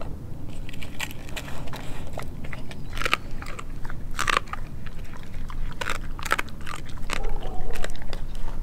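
Doberman chewing a raw meal of turkey neck, chicken feet and pork skin, with sharp, irregular crunches.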